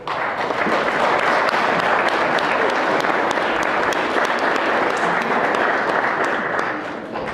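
Audience applauding: dense, steady clapping that starts all at once and tapers off near the end.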